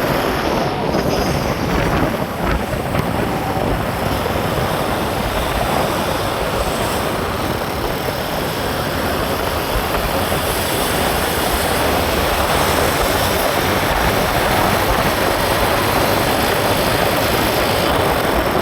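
Steady rushing road and wind noise from a vehicle on the move.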